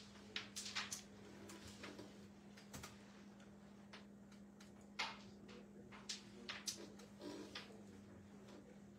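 Sharp wooden clicks of a carrom striker flicked into the carrom men and the pieces knocking together on the board, a cluster in the first second and several more later, the loudest about five seconds in. A steady hum runs underneath.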